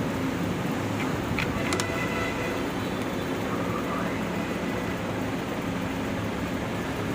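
Steady background road traffic noise, with a few clicks and a brief high-pitched tone about two seconds in.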